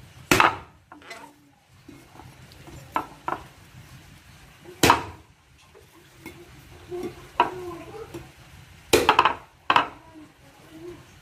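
Cleaver chopping into the husk of a green coconut: separate sharp blows, the loudest about half a second in, near five seconds, and two close together around nine seconds, with lighter knocks between.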